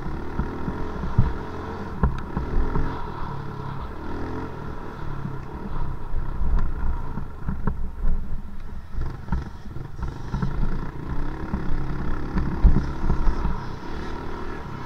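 Dirt bike engine running and revving unevenly as it rides over a motocross track, with occasional sharp knocks from the bumps.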